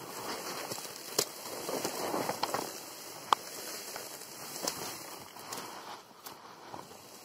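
Dry reed stalks rustling and crackling against a bicycle being pushed through a reed bed, with a few sharp clicks along the way.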